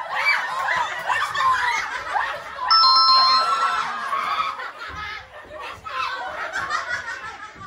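A group of people laughing and shrieking excitedly. About three seconds in, a short electronic ding-dong chime of two notes sounds over the laughter, a correct-answer sound effect.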